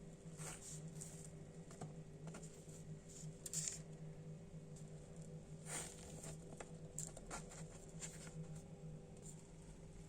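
Faint, scattered soft taps and clicks of kitchen handling, cake and utensils being worked by hand, over a steady low hum of room tone.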